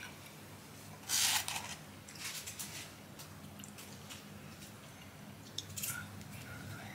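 Paper fast-food bag and wrappers rustling and crinkling as food is handled. The loudest rustle comes about a second in, with lighter crinkles after.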